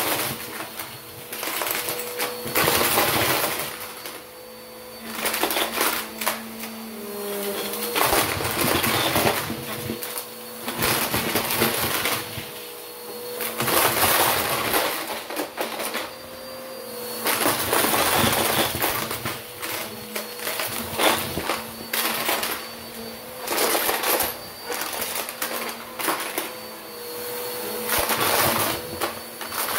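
Bissell upright vacuum cleaner running with a steady motor hum as it is pushed back and forth over carpet, sucking up plastic bottle caps and fake coins. The caps and coins clatter and rattle into the machine in surges every two to three seconds, with each stroke.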